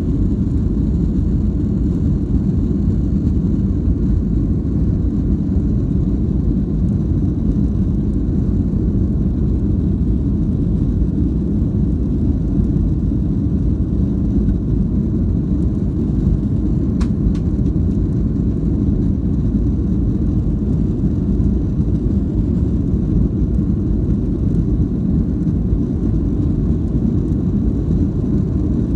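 Cabin noise inside a jet airliner rolling on the ground after landing: a steady low rumble of the engines and wheels, unchanging throughout.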